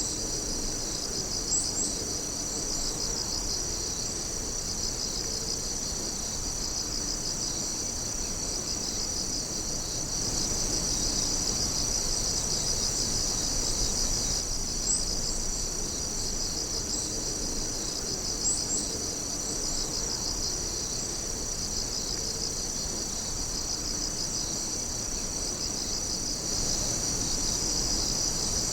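Night chorus of insects: dense, steady high-pitched trilling with a pulsing rhythm, and a few short, higher chirps standing out now and then.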